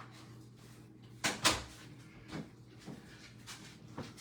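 A few short knocks: two sharp ones close together just over a second in, then softer ones.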